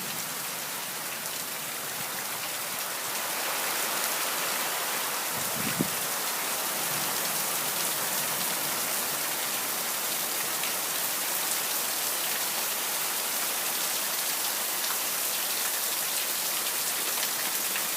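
Heavy rain pouring down steadily during a thunderstorm, getting a little heavier about three seconds in. One brief knock about six seconds in.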